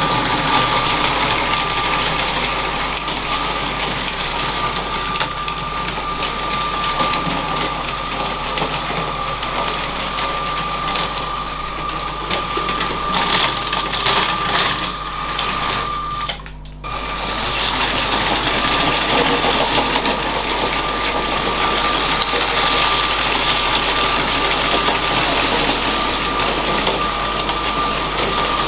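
LEGO train's small electric motor running with a steady high whine, its wheels and gears rattling on the plastic track, with scattered light clicks. The sound drops out briefly a little past halfway, then carries on.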